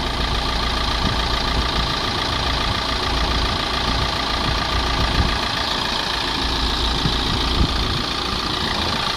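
Mercedes C-Class C200's 1.6 diesel engine idling steadily, heard close-up under the open bonnet.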